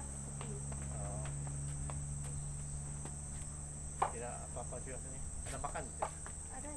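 A steady high-pitched drone of insects over a low steady hum, with a sharp click about four seconds in.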